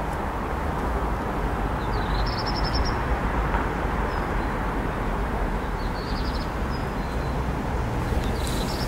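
Open-air ambience: a steady rumbling background noise, with a bird's short high chirps about two seconds in, around six seconds and near the end.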